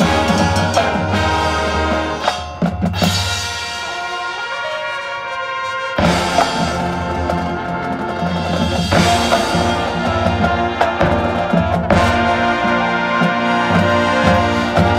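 High school marching band's brass and percussion playing the loud closing music of a field show. A softer held passage gives way, about six seconds in, to a sudden full-band entrance with drum hits that carries on.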